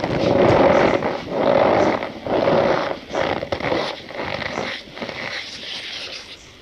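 Compressed cornstarch being squeezed and crushed, giving a squeaky, crunching sound. Three loud squeezes come in the first three seconds, followed by quieter crumbling.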